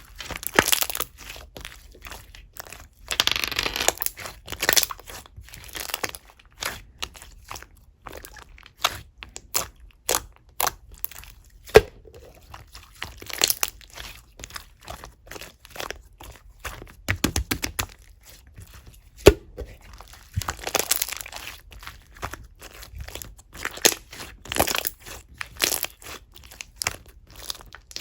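Clear slime with small fruit parts on it being squished and kneaded by hand: irregular sticky crackles, pops and clicks, with two sharper, louder pops.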